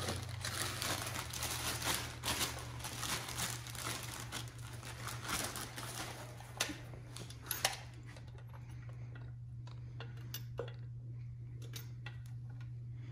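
Plastic wrapping crinkling and rustling as a model train tender is unwrapped by hand. It is dense for the first half, then thins to a few light handling clicks.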